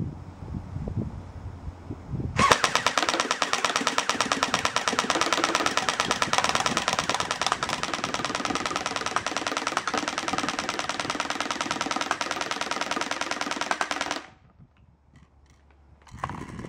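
JG AK47 Beta Spetz electric airsoft rifle (AEG) firing full-auto in one long continuous burst of about twelve seconds, a rapid even rattle of its gearbox cycling, starting a couple of seconds in and cutting off suddenly.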